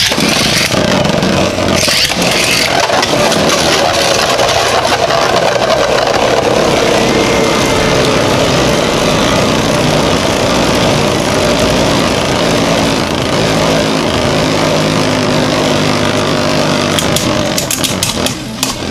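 Two Beyblade Burst tops spinning against each other in a plastic stadium: a loud, steady whirring and grinding rattle that starts suddenly as they are launched. Near the end come sharp clicks as the tops clash.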